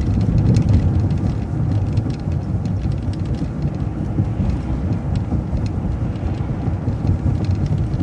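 City bus in motion heard from inside: a steady low engine and road rumble.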